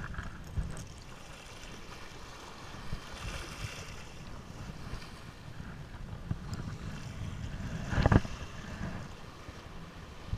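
Wind buffeting the microphone over small sea waves washing close by, with a brief louder rush about eight seconds in.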